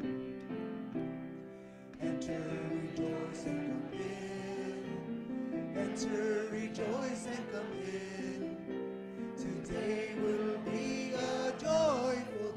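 Piano chords, then about two seconds in a hymn begins, sung over the piano accompaniment, with one wavering voice standing out.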